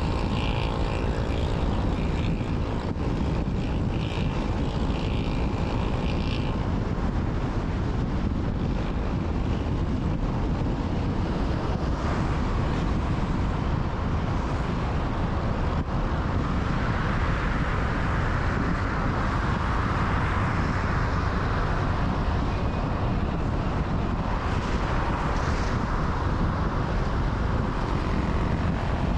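Car driving along a highway: steady road noise from tyres, engine and wind, with a broader hiss swelling for several seconds after the midpoint.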